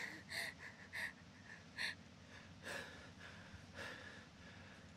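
A person breathing hard: a few quick, short gasps in the first two seconds, then slower, longer breaths.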